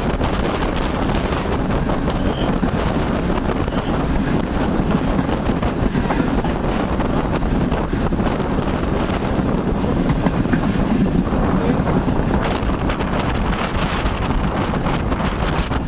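Steady running noise of a passenger train moving at speed, with wind buffeting the microphone.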